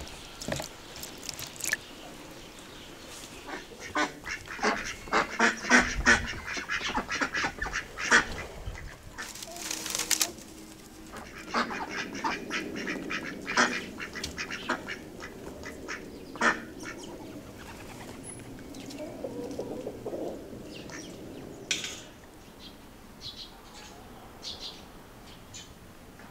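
Domestic ducks quacking in quick runs of calls, loudest and densest a few seconds in.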